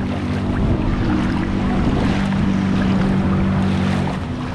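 Someone wading through floodwater, with steady sloshing and splashing under a steady low hum.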